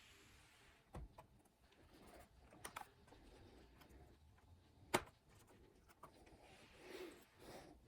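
Mostly near silence, broken by a few faint, sharp plastic clicks and light handling noise as a laptop's plastic bottom cover is pried loose with a guitar pick, its snap clips popping free. The loudest click comes about five seconds in.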